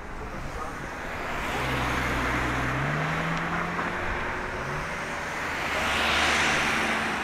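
A motor vehicle driving past on the street: its engine note rises about three seconds in, and the engine and tyre noise swell to their loudest about six seconds in before easing.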